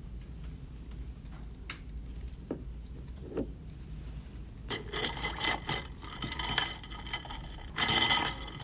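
Ice cubes clinking and rattling against the metal rim of an iced-coffee tumbler as they are stirred with a straw, starting about five seconds in and loudest near the end, over a steady low room hum.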